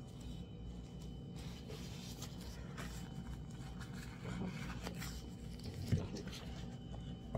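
Faint rustling and scraping handling sounds close to the microphone, with one short knock about six seconds in.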